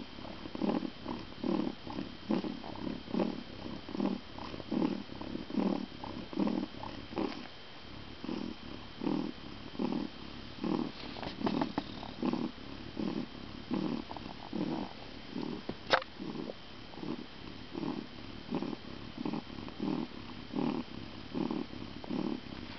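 Domestic cat, heavily pregnant and close to giving birth, purring steadily close up while being stroked on the chin and cheek; the purr swells and fades with each breath, about three breaths every two seconds. One sharp click about two-thirds of the way through.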